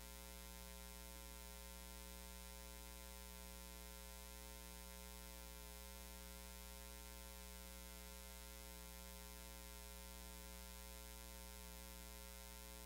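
Near silence with a faint, steady electrical hum: a low buzz with evenly spaced overtones that does not change.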